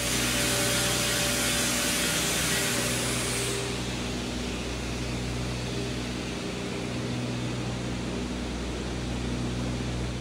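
Electric motor of a homemade belt-driven lathe running steadily with a hum while it turns a long pole. A loud hiss lies over it for the first three and a half seconds, then eases off.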